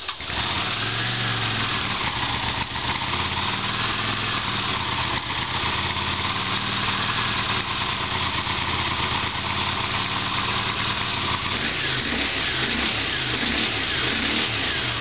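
Honda CX500 liquid-cooled V-twin engine, just caught after cranking, running steadily on the choke with a slight waver in its note later on. The owner judges this to be too much choke.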